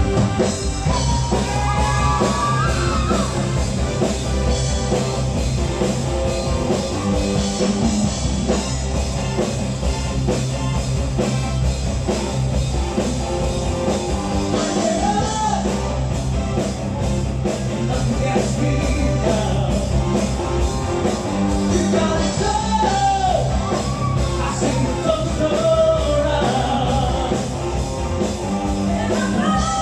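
Live rock band with a group of singers performing a rock anthem: steady drums and bass under electric instruments, with sung lines coming in and out over the beat.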